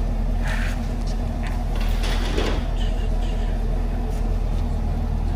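Chevrolet Camaro LT1's 6.2-litre V8 idling steadily, with a couple of brief knocks about half a second and two seconds in.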